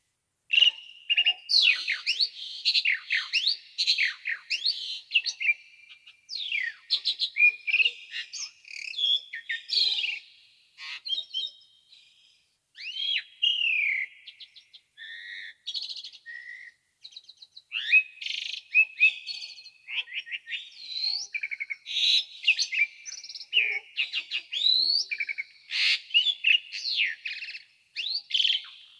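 Asian pied starling (jalak suren) singing vigorously: a fast, varied stream of clear whistles, rising and falling glides and chattering notes, broken by brief pauses.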